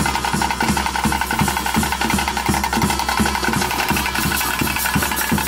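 Tulu bhuta kola ritual music: drums beat a fast, steady rhythm under a held wind-instrument tone, with a shimmering metallic jingle on top.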